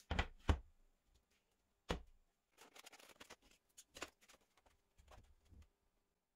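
Objects handled on a wooden floor: several sharp knocks as a chipboard board and a heavy metal chuck are set down, two close together at the start and others about 2 and 4 seconds in, with lighter clatter and scraping as the chuck is pushed into place.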